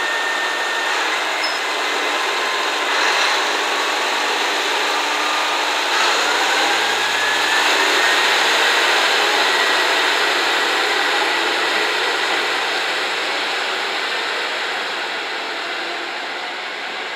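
KiHa 122 series single-car diesel railcar pulling away under power: a steady engine and running-gear noise, with a whine that rises in pitch about six seconds in. It fades slowly over the last few seconds as the car draws away.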